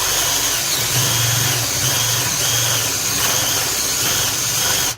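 Electric drill running a 7/8-inch spade bit as it bores into wood: a steady motor whine over the cutting noise. It stops suddenly near the end.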